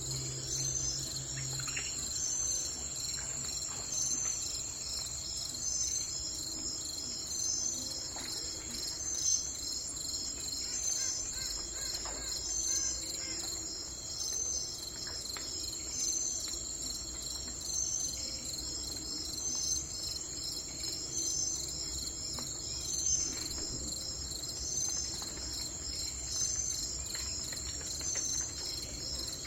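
Crickets chirping in a steady, high-pitched chorus, with a brighter pulse repeating about every two seconds. A few faint bird chirps come through now and then.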